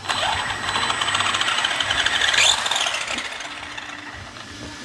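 Brushless motor of an Arrma Big Rock V3 RC monster truck, newly installed for 6S, whining as it is throttled during a first test run. The whine rises right at the start, climbs sharply and drops back a little past two seconds, then eases off toward the end.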